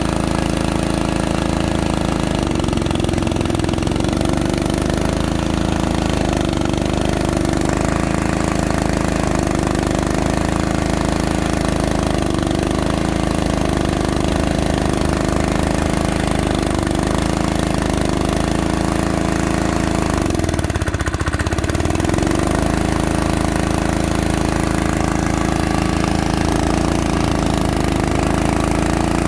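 Small diesel engine running steadily, driving a core drilling machine, its note wavering slightly as the drilling load changes, with a brief dip and recovery about 21 seconds in.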